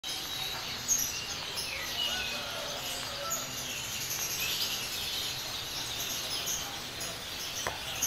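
Small songbirds chirping and twittering, many short high calls overlapping over a steady background hiss, with a single light tap near the end.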